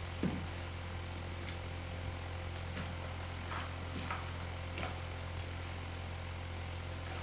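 Steady low hum and a faint high tone, with a short low sound about a quarter second in and a few faint, brief rustles and creaks as a paper-and-fabric tabletop puppet is handled.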